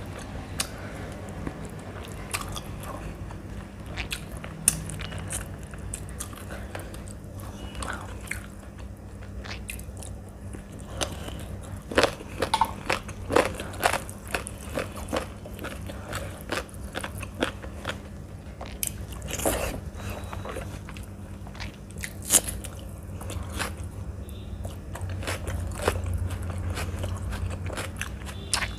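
Close-miked eating of rice and chicken curry by hand: chewing with wet mouth clicks and smacks, coming in irregular clusters that are busiest about midway, over a low steady hum.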